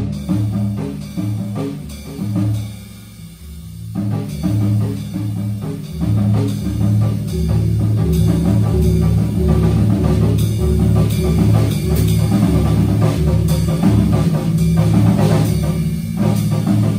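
Small jazz group playing live: saxophone over double bass, electric guitar and drum kit, with the drums prominent. The playing thins out about two seconds in, then builds fuller and louder from about six seconds on.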